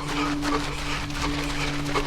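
A runner's heavy, wheezing breathing in a quick, even rhythm, with a steady wheezing tone that sets in at the start and holds.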